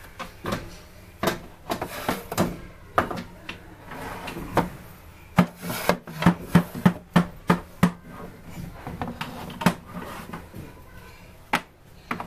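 Small wooden dollhouse furniture being handled and set down on the dollhouse's wooden floor: scattered knocks and clacks with some scraping, and a quick run of about eight knocks between five and eight seconds in.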